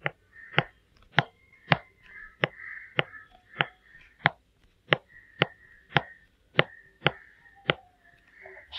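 Stylus tapping on a tablet screen, one sharp tap for each dot drawn, about fourteen taps at an even pace of roughly two a second.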